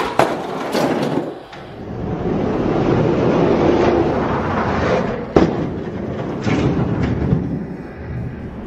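Die-cast toy monster trucks rolling down a plastic Hot Wheels track: a steady rumble broken by several sharp clacks, the loudest about five seconds in.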